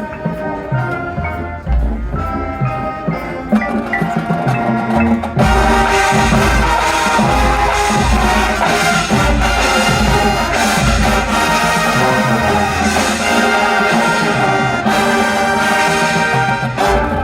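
High school marching band playing: a lighter passage, then the full band with brass and percussion comes in loud about five seconds in and keeps going.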